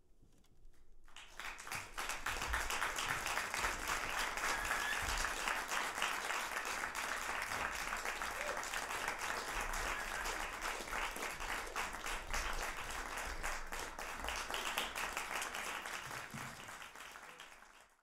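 Audience applause, starting about a second in, quickly building and holding steady, then thinning near the end before it cuts off.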